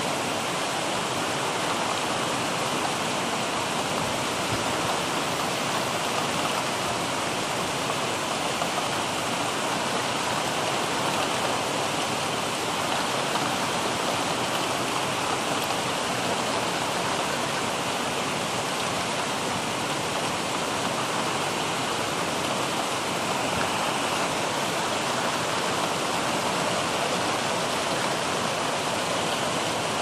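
Steady rain, an even hiss that holds unchanged with no thunder.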